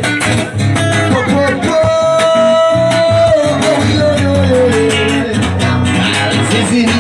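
Live reggae song played on a strummed acoustic guitar through a PA, with a singer's voice that holds one long note about two seconds in.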